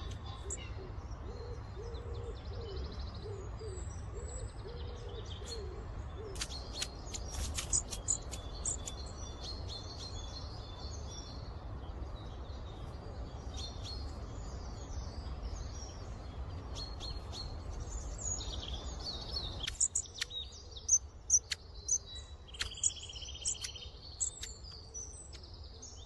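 Small birds calling in short, high, thin chirps and call notes, in clusters about seven seconds in and again from about twenty seconds on, over a low rumble that drops away about twenty seconds in.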